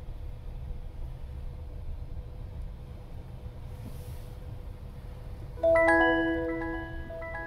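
Low steady rumble of a car cabin moving slowly. About five and a half seconds in, a bright musical sting of chime-like mallet notes starts suddenly, becomes the loudest sound, and rings out.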